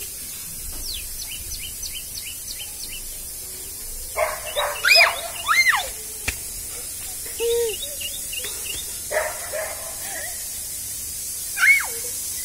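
A young puppy giving short, high-pitched yelps and whines several times. A quick series of bird chirps comes near the start.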